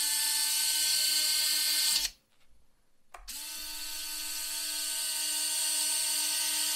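Behotec C50-F electric landing-gear retract running on a 3-cell LiPo: a steady motor whine as the gear leg swings up, cutting off about two seconds in, a click about a second later, then the whine again as the leg swings back down.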